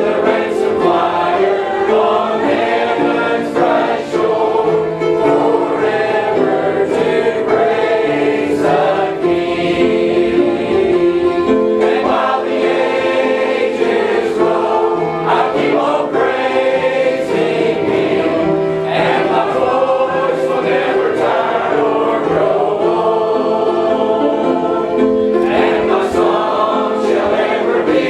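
Many voices singing a gospel hymn together, with no break.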